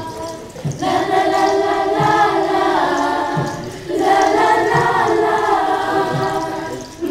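A group of dancers singing a Pokot traditional song together, in two long phrases of held notes, the first starting about a second in and the second about four seconds in, with soft low thuds under the singing.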